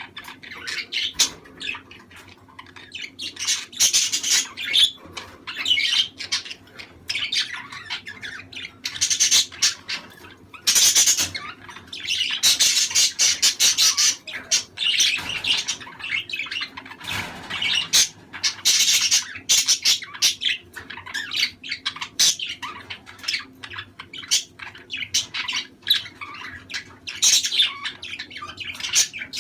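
Budgerigars chattering without a break: a dense mix of quick chirps, warbles and squawks.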